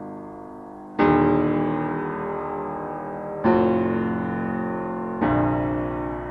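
Background piano music: slow sustained chords, a new chord struck about a second in, again about halfway through and once more near the end, each left to ring and fade.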